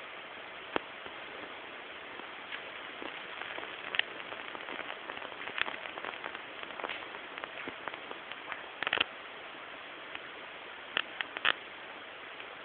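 Scattered small clicks and taps of hermit crabs' shells and legs knocking on hard surfaces in a tank, some in quick clusters of two or three, over a steady hiss.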